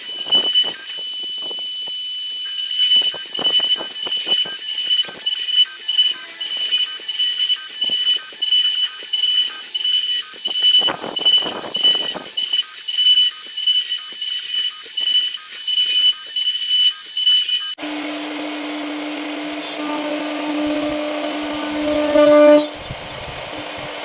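CNC router spindle whining as the bit cuts HDHMR board, swelling and fading about one and a half times a second as the tool works through the jali pattern. About three-quarters of the way through, the sound changes abruptly to a steady, lower-pitched spindle hum.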